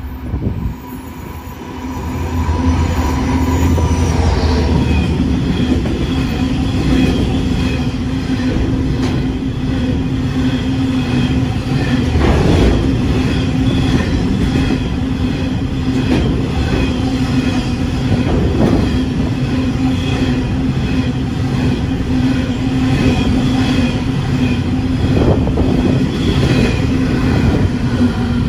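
Diesel freight locomotive passing close by, its engine tone falling in pitch as it goes past, then a long rake of coal hopper wagons rolling by with a steady loud rumble and rhythmic clatter of wheels over the rail joints.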